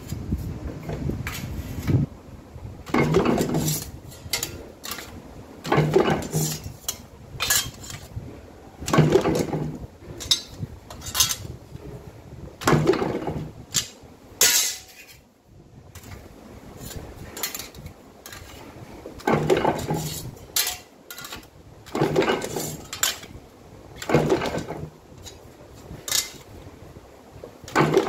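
Sheet-steel panels clanking and ringing as they are handled and folded in a cast-iron bending press. A ringing metal clang comes about every three seconds, with lighter clinks of sheets knocking together in between.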